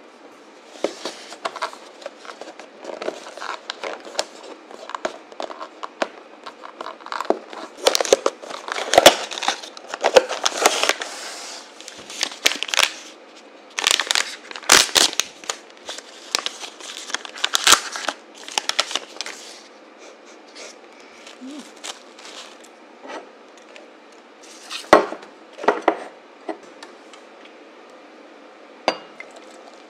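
Paper packaging being handled: a cardboard coffee-bag box and a paper coffee-bag sachet crinkled, rustled and torn open, a dense run of crackles and small taps. It thins out after about two-thirds of the way, with a few sharper knocks near the end.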